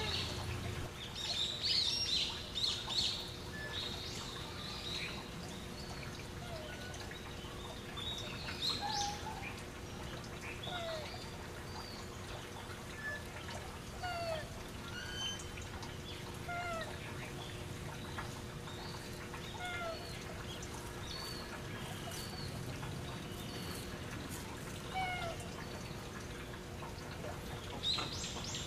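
Japanese macaques giving short coo calls every second or two, each a quick gliding note, over a steady low hum. A few sharp clatters sound in the first seconds and again near the end.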